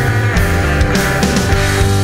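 Background rock music with distorted electric guitar and a steady drum beat.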